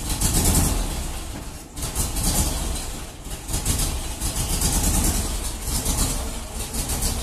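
Volkswagen Beetle's air-cooled flat-four engine running unevenly, its loudness swelling and dropping every second or two, with a deep sound likened to a barge.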